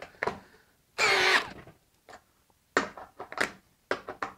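Ryobi HP cordless hammer drill driving a 1/2-inch lag screw into a log with a socket in short stop-start bursts: a brief motor whine about a second in, then a run of sharp clicks and knocks as the lag is worked the rest of the way in.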